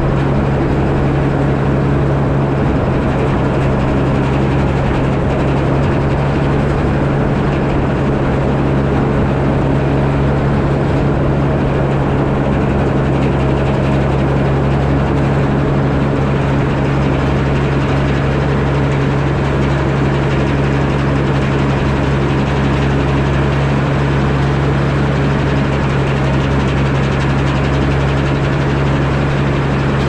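The engine-driven Frick sawmill running steadily, with a strong, even engine hum and no pauses or changes in pitch.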